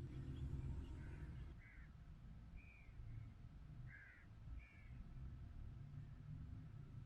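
Wind rumbling low and steady on the microphone, with a bird giving about five short calls between about one and five seconds in.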